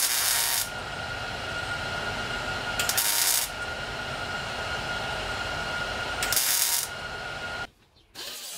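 Three short bursts of welding on thin car-body sheet metal, each lasting about half a second and a few seconds apart, over a steady background hum.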